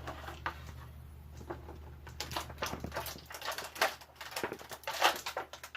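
Plastic blister packaging crinkling and clicking as it is handled and pried apart to free an action figure's accessory heads. The crackles are sparse at first, turn into a dense run in the second half, and the loudest snap comes about five seconds in.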